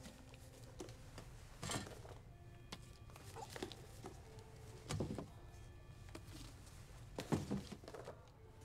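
Soft background music with several scattered thumps, the loudest about seven seconds in.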